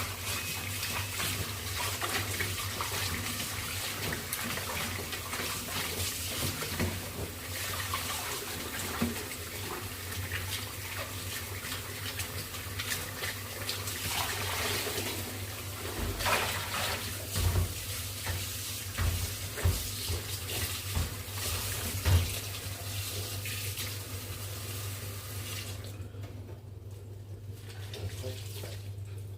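Tap water running into a kitchen sink as cloth towels are washed by hand, with a few knocks and splashes midway. The running water stops near the end.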